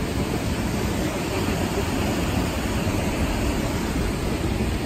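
Steady rushing of creek water spilling over a low concrete weir and running through the shallows.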